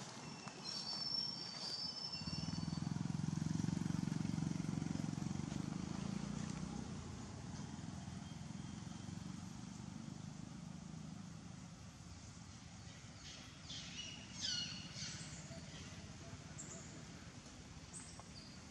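A motorbike engine passing by, swelling in about two seconds in and fading away over the next eight or so. Short high chirps come near the start and again as a cluster of falling chirps about fourteen seconds in.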